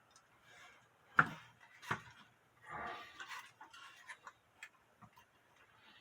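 Clock ticking, mixed with sharp knocks and clicks as hands work inside a wooden cuckoo clock to bend the bird's mounting. The loudest knock comes about a second in and another just before two seconds, followed by a short rustle.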